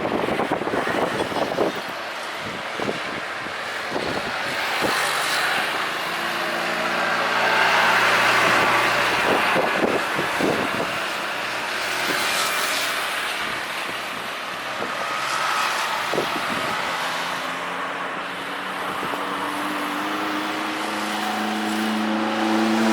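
Steady engine noise outdoors, from airliner jet engines mixed with passing road traffic; a low engine tone rises and grows louder near the end.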